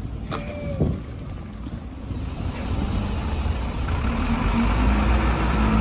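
Skateboard coming down off a bench trick with two sharp knocks in the first second. After that a steady rumble with a low hum grows louder, with street traffic in it.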